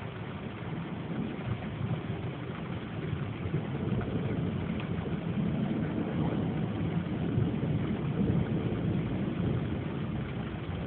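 Rain in a severe thunderstorm, under a low rolling rumble of thunder that builds a few seconds in, holds, and eases near the end.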